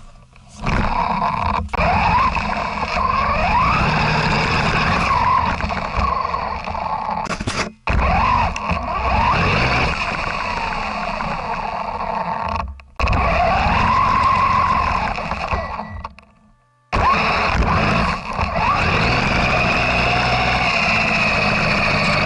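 Onboard sound of an electric RC 4x4 truck driving through snow, heard from a camera mounted on the truck. The motor and gear whine rise and fall with the throttle over a steady rumble from the drivetrain and tyres. The sound cuts out abruptly three times.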